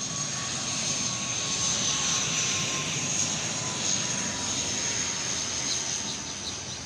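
Twin-engine turboprop airliner landing, its engine and propeller noise swelling and then fading as it passes, with a steady high whine over the noise and a lower tone that slowly falls in pitch.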